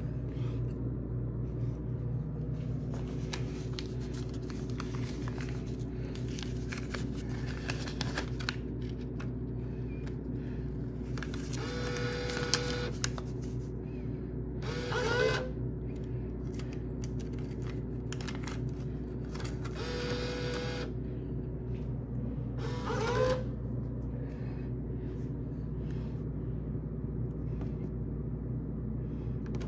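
Drink vending machine humming steadily while its bill acceptor whirs as it draws in a dollar bill. This happens twice, each time a short whir followed about two seconds later by a brief rising whir.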